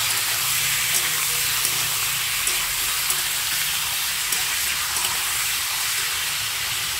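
Raw chicken pieces sizzling steadily in hot oil in a kadai, freshly added to the oil. A metal spatula stirring them gives faint scrapes and taps now and then.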